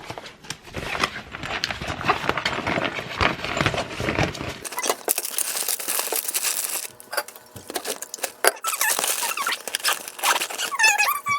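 Rustling and clicking of belongings being handled and packed into a bag, with a brief squeak near the end.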